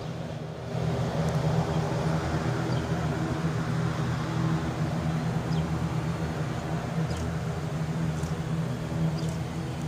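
Steady low engine hum with an even drone, with a few short high chirps about seven to nine seconds in.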